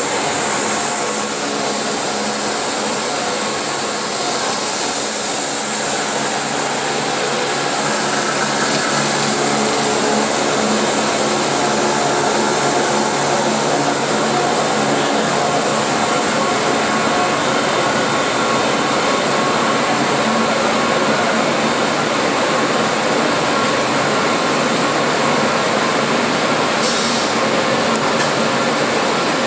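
Five-roller solventless silicone coating machine running: a steady, loud mechanical hiss and hum of the line in operation, with faint steady tones under it and no change in level.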